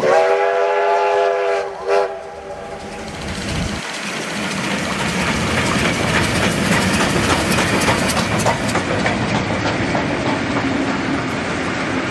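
Victorian Railways A2-class steam locomotive 986 sounding its steam whistle: one long blast of about two seconds, then a short toot. The train then comes closer and passes, growing louder, its wheels clicking rapidly over the rail joints.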